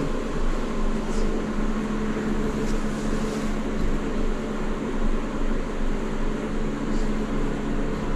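Steady mechanical hum of a portable workshop fan heater running, with a few light ticks over it.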